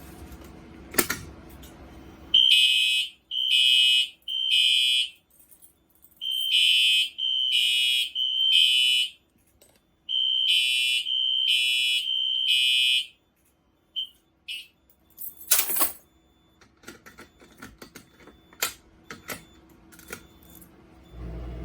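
Fire alarm horn sounding in the temporal-three evacuation pattern: three rounds of three short blasts, then it stops. A loud knock and a few clicks follow.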